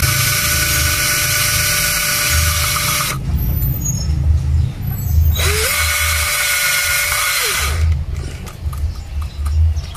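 A small motor-driven power tool, drill-like, running in two bursts. The first stops about three seconds in; the second starts about five and a half seconds in with a rising whine, runs steadily and winds down just under eight seconds in. Low knocks and handling thumps go on underneath.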